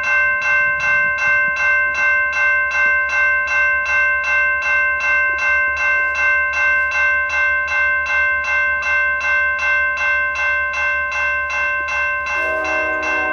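Railroad grade-crossing bell ringing fast and steadily, about three strokes a second, over the low rumble of a freight train of autorack cars rolling past. Near the end a second, lower-pitched ringing joins in.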